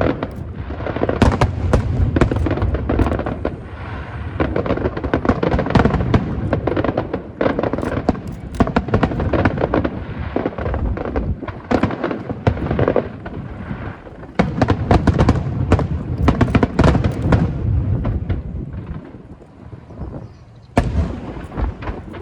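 A fireworks display with dense, rapid bangs and crackles over a low rumble, thinning out briefly near the end before another burst of bangs.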